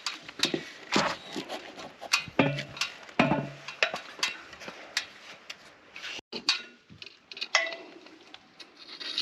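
Reclaimed roof tiles clinking and knocking against each other as they are handled and laid in place: a string of irregular sharp knocks and clinks, some with a short ring.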